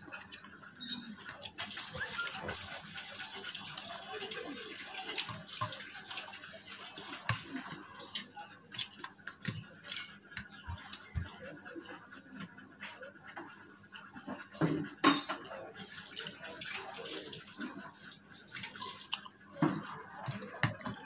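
Eating by hand: wet chewing and mouth sounds, with fingers mixing rice on a steel plate and scattered small clicks.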